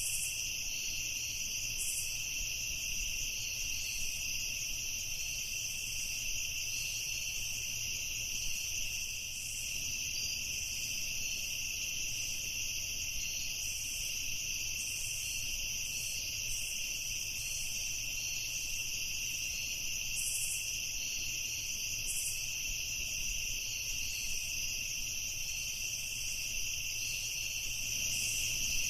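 Night chorus of crickets: a steady, high-pitched, unbroken trilling, with short higher chirps standing out every few seconds.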